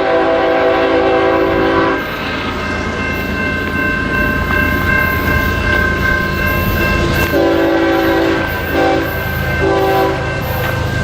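Freight train passing with its diesel locomotive's air horn sounding: a long blast that ends about two seconds in, then near the end a long, a short and a long blast. A low rumble of the train and a steady high ringing tone run underneath.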